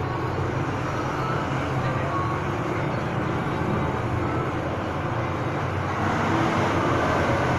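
A steady low mechanical rumble with a hum, like a running engine or motor, unchanging throughout.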